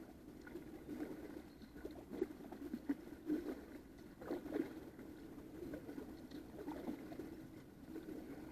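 Kayak paddle strokes on calm water: the blades dipping and splashing, with drips running off them. The louder splashes come from about two to five seconds in.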